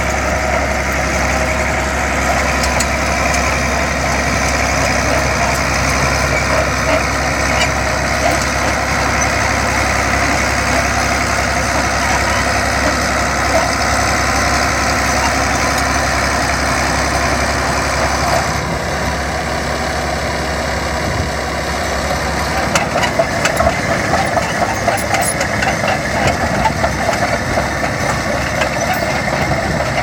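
Vintage crawler bulldozer's diesel engine running steadily while the machine pushes soil. About 18 seconds in the sound eases a little, and from about 22 seconds a rapid, uneven clatter joins it.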